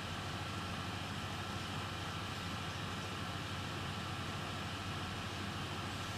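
Steady background hum and hiss with a faint constant high tone, and no distinct events: room tone.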